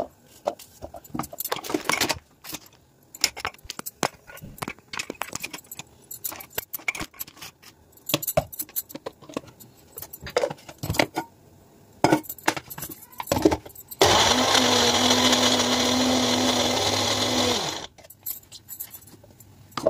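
Scattered knocks and clicks of kitchen work. Then an electric mixer grinder runs for about four seconds, grinding the garlic and green chilli masala, and stops suddenly.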